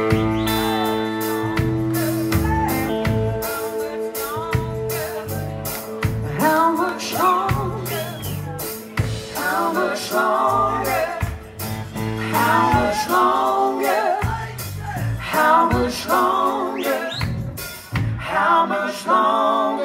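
A live band with guitar and drum kit playing a song. The opening guitar chords ring on, and a man starts singing about six seconds in and keeps singing through the rest.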